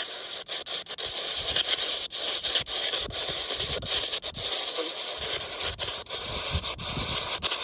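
Spirit box sweeping through radio frequencies: a steady hiss of static chopped by brief gaps several times a second as it jumps from station to station, with low rumbling underneath.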